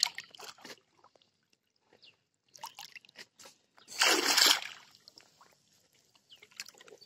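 Pond water sloshing and splashing around a person wading chest-deep and groping by hand, with light splashes early on and one loud splash about four seconds in.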